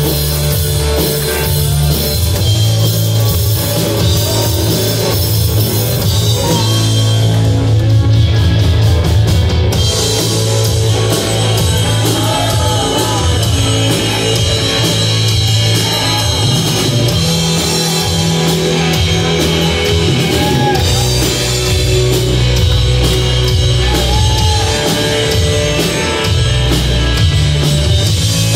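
Rock band playing live and loud: electric guitar, bass guitar and drum kit in a heavy rock song. The cymbals thin out for a couple of seconds about a third of the way through, then crash back in.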